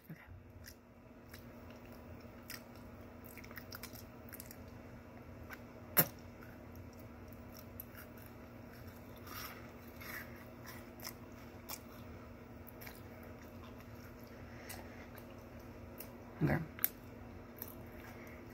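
Faint chewing of a Twix bar, the crunchy biscuit and caramel giving small wet clicks and crunches. There is a sharper click about six seconds in and a brief vocal noise near the end.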